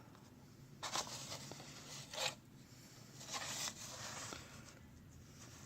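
Faint rustling and scraping of a socket set's cardboard cover being handled, in a few short bursts about a second, two seconds and three and a half seconds in.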